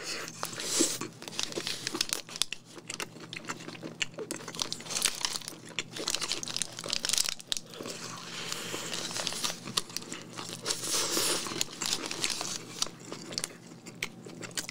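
Close-miked eating of a chicken burger: bites and chewing with many small crunches, mixed with the burger's paper wrapper crinkling and rustling in the hands.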